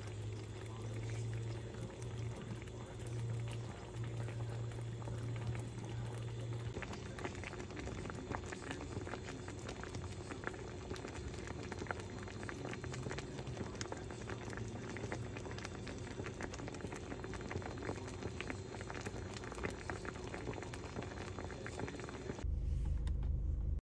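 Breaded chicken cutlets frying in hot oil in a skillet: a steady sizzle with dense crackling and popping of the oil. Near the end the sizzle cuts off and a low rumble takes over.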